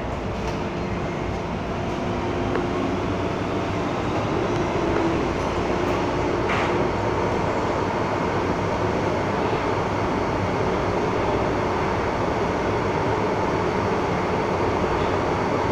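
MTR M-Train running through a tunnel, heard from inside the car: a steady rumble of wheels and running gear, with a hum of several steady tones that fades out about six seconds in.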